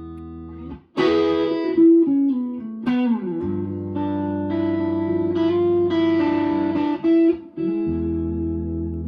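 Electric guitar played through effects: sustained, ringing chords, freshly struck about a second in, again near three seconds and near the end, with a downward slide in pitch just after the second chord.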